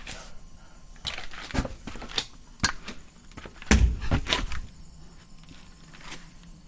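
Footsteps of a person in sandals climbing concrete stairs: a string of separate scuffs and knocks, the heaviest thud about four seconds in. The steps fade as he moves up out of earshot.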